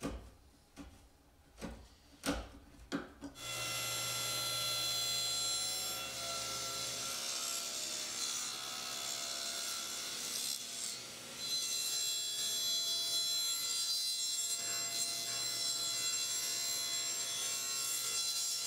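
A few sharp paring strokes of a hand chisel on walnut. About three seconds in, a table saw starts cutting: its blade runs a rabbet along the edge of a walnut case side, a steady cutting sound that eases briefly partway through.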